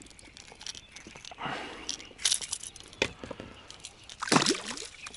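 Light clicks and metallic rattles of a silver lure and its hooks being worked free of a small pike's mouth by hand. A brief louder sound comes a little after four seconds in, as the fish is lowered back into the water.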